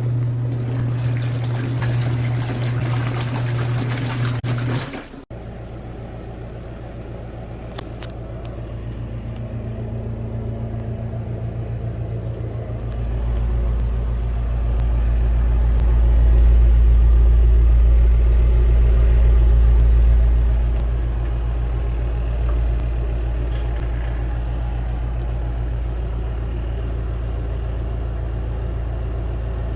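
Auertech twin-tub portable washing machine running, its motor giving a steady hum. For the first five seconds a loud rushing hiss rides over the hum and cuts off abruptly; after that a deep rumble swells up about halfway through, then eases back to a steady level.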